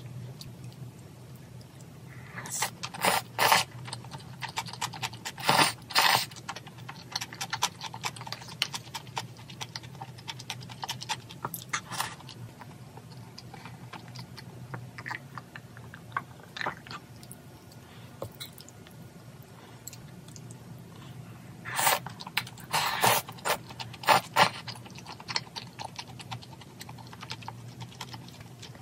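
Close-miked eating of gochujang jjageuli stew with glass noodles: chewing, with short clusters of sharp clicks about three seconds in, around six seconds, at twelve seconds and again from about 22 to 25 seconds, over a steady low hum.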